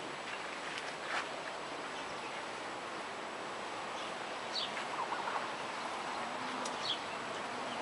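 Steady outdoor background hiss with a few short bird chirps, most of them past the middle.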